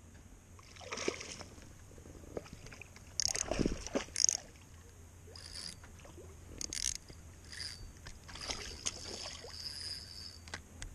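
Scattered knocks, clicks and rustles of fishing gear being handled in a small boat, loudest in a cluster about three to four seconds in, over faint water sloshing against the hull.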